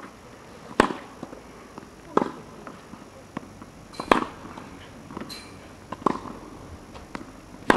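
Tennis ball struck by racquets in a rally, a sharp hit about every two seconds, five in all, with softer knocks in between.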